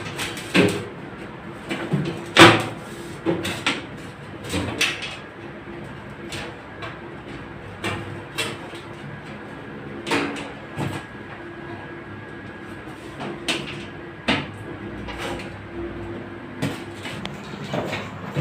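A string of irregular knocks and clunks from hands-on work on the old microwave oven's casing, some sharp and some heavier.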